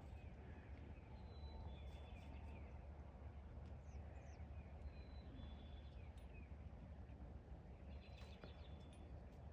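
Faint background: a steady low hum with distant bird calls, short whistled notes and chirps coming in small groups every few seconds.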